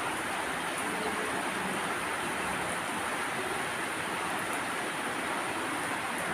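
Steady rushing noise of water, even throughout, with a thin high steady whine above it.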